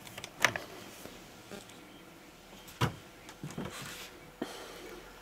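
Clear plastic lid of a Nagra III reel-to-reel tape recorder being pressed shut and latched: a few sharp clicks and knocks of plastic and metal catches, the loudest about three seconds in.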